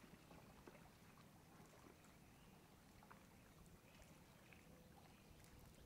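Near silence: faint outdoor lake ambience, a low hiss with scattered soft ticks and clicks, and a faint steady hum starting near the end.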